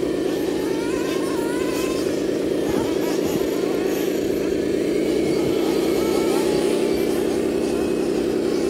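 Radio-controlled dump truck's motor and drivetrain running steadily as it climbs a dirt slope under a load of rock, with faint voices in the background.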